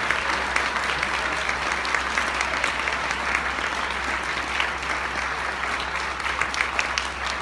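Audience applauding: a dense, steady patter of many hands clapping, easing slightly near the end.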